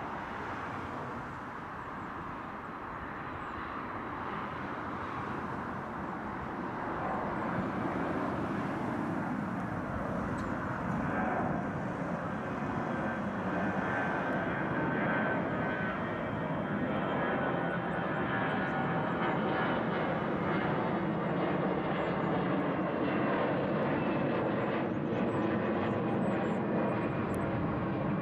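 Airbus A320's twin jet engines at climb thrust just after take-off, a steady jet noise that grows louder as the airliner climbs out overhead, with a faint high whine in the middle.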